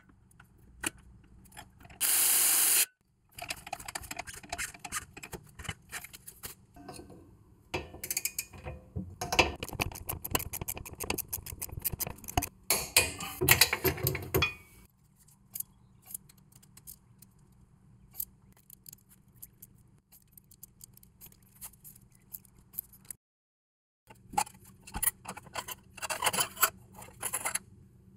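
Hand tools and steel suspension parts being worked on a car's rear axle: irregular metallic clinks, scrapes and rapid clicks, thickest in the middle, with a brief loud rushing noise about two seconds in.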